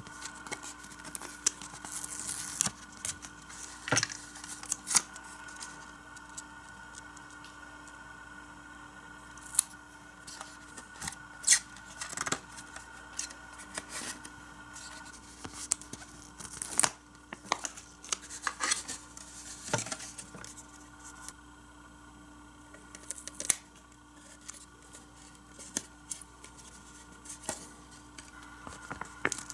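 Hard plastic toy playset parts and a paper sticker sheet being handled: scattered light clicks, taps and rustles, over a faint steady hum.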